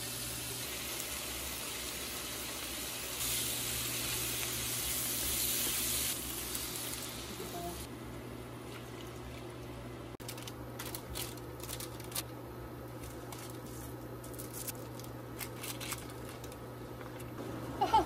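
Duck meat and vegetables sizzling in a frying pan, with a louder hiss for a few seconds. It then drops to quieter simmering with scattered small clicks.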